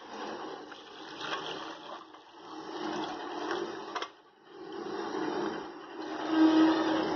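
Cooking water draining from boiled chana dal through a mesh strainer into a small pot: a splashing pour that comes in uneven swells, with a brief pause about four seconds in.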